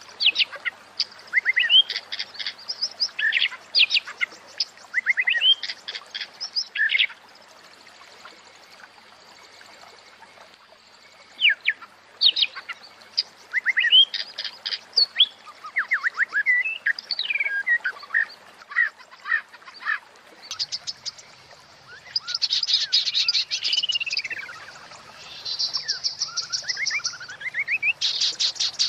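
Female white-rumped shama (murai batu) calling: phrases of quick chirps and whistled glides, with a pause of a few seconds a quarter of the way in and denser, rapid rattling notes with falling and rising glides near the end. These are a female's calls, used to bring male shamas into breeding condition.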